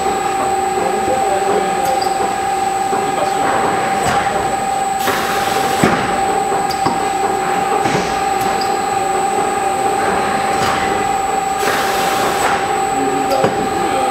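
FM5D multi-width film-wrapping machine and its belt conveyor running steadily, with a constant whine and a few light clicks, plus two bursts of hissing about five seconds in and near the end.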